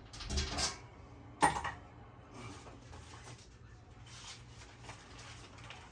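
Handling noises as a bag of replacement primer bulbs is picked up and searched: short rustles and light knocks, with one sharp click about a second and a half in.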